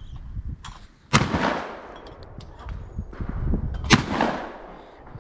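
Two shotgun shots fired at a clay target, about three seconds apart, each trailing off in a long echo.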